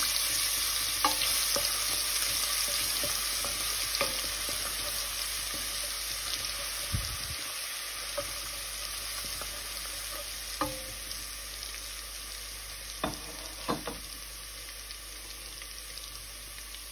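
Garlic paste sizzling in hot oil in a stainless steel pot, stirred with a wooden spatula that knocks against the pot now and then. The sizzle is loudest at the start and slowly dies down.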